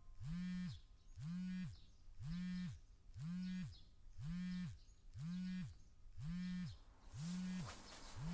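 Smartphone vibrating against a bed in a regular series of buzzes, about one a second, each lasting about half a second. Near the end, bedding rustles as the phone is picked up.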